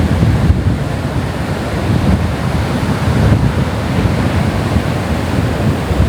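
Strong wind buffeting the microphone in a steady low rumble, over the rush of Atlantic surf breaking on the beach.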